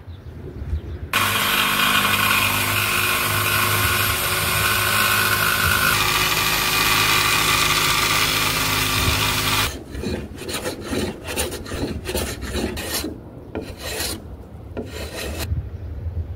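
Corded Makita jigsaw starting about a second in and cutting along the edge of a plywood hull panel, a steady motor whine under the noise of the blade, stopping near ten seconds in. Then a hand tool worked over the plywood edge in short strokes, about three a second.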